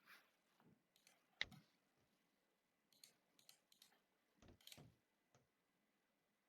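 Faint, scattered clicks and light taps in a small room: one sharp click about a second and a half in, a quick run of light ticks around three seconds, then a couple of duller taps.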